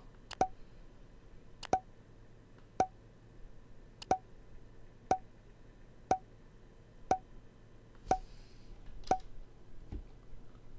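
Steady ticking, about one tick a second, each tick a sharp click with a short pitched pop, from the soundtrack of the video being played. The ticking stops near the end, followed by a single low thump.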